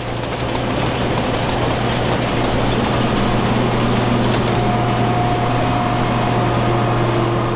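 Combine harvester running under load while harvesting grass seed: a steady engine hum under the dense clatter of the threshing machinery, with a higher steady whine joining about halfway through.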